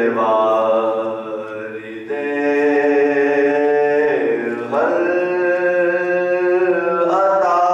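A man's solo voice chanting in long held notes, each phrase ending in a slide down or up in pitch.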